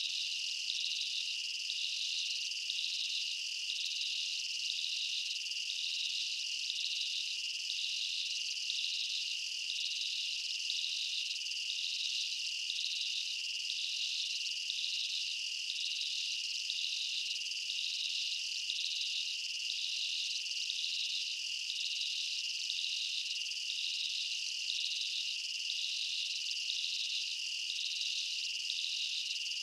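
Steady chorus of insects: a continuous high, shrill trill with a regular pulsing layer just above it, unchanging throughout.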